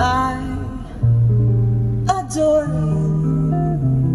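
A song with acoustic guitar, a singing voice and deep bass notes, played back through the car's upgraded audio system: Ground Zero Radioactive two-way front speakers and an active subwoofer. Guitar chords are struck at the start and again about two seconds in.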